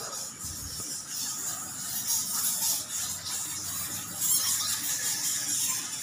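A roosting colony of bats squeaking and chittering in a dense, high-pitched chorus that grows louder about two seconds in.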